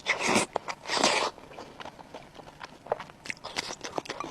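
Close-miked eating: two loud crunchy bites in the first second and a half, then a run of quieter, short chewing clicks.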